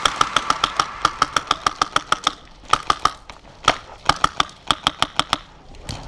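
Airsoft gun firing rapid bursts of about eight shots a second, in several strings with short gaps between them.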